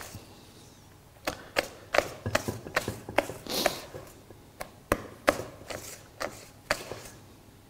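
Wire balloon whisk beating thick cake batter by hand in a stainless steel bowl, its wires clicking and knocking against the metal in an irregular rhythm, about two or three strokes a second after a quiet first second. The flour is being worked in so that no lumps remain.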